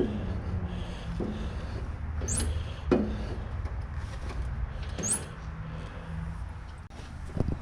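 Hand tools and metal parts of a riding mower clinking and knocking as it is worked on: a handful of separate knocks and clicks, two of them with a brief metallic scrape, over a low steady rumble.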